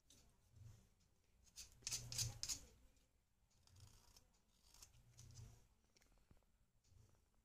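Small knife blade scraping a pinkish-red bar, shaving powder off it: a quick run of several scraping strokes about two seconds in, then a few softer, sparser strokes.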